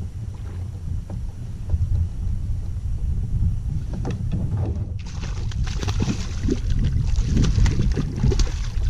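Wind buffeting the microphone over water lapping against a small kayak's hull. About five seconds in, the sound turns suddenly brighter with a run of small splashes and sloshing.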